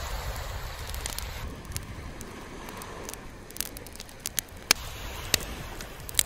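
Wood campfire crackling, with a scattering of sharp pops over a steady low rumble.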